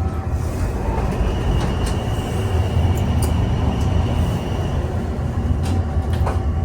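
Metro train rumbling through an underground station, a steady low rumble with a high whine for a few seconds and a few sharp clicks near the end.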